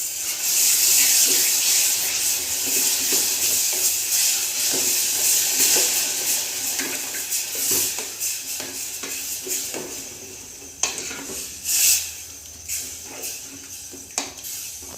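Grated ginger and melted jaggery sizzling in a pan while being stirred, the spoon scraping and knocking against the pan. The sizzle is loudest at first and dies down over the second half, with a few sharper knocks near the end.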